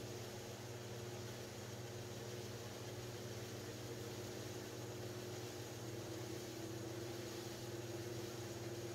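Electric pottery wheel motor running at a steady speed, a constant hum with one steady tone.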